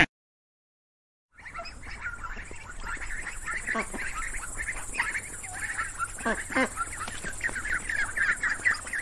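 A flock of domestic ducks quacking and chattering continuously, starting about a second and a half in, with several louder single quacks standing out above the chatter.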